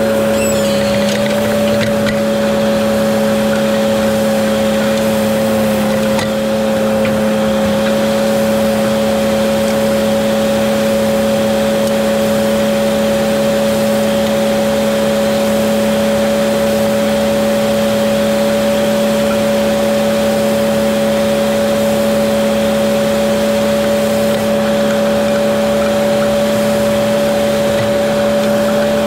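Fendt tractor pulling a seed drill across ploughed ground at an even working speed: a steady drone with a constant high whine that does not change.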